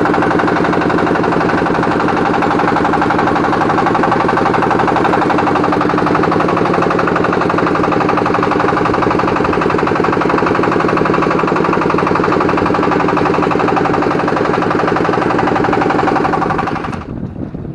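Boat engine running steadily at a constant speed, loud and close, with a fast even beat under it; it cuts off abruptly near the end.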